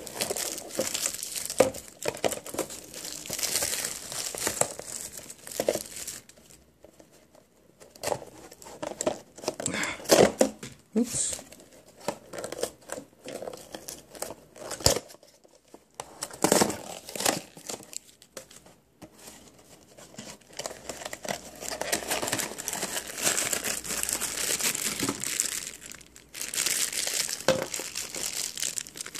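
Plastic wrapping and packaging crinkling and tearing as a toy blind box is opened by hand, in uneven bursts with a few short pauses. Near the end, a foil bag from inside the box crinkles in the hand.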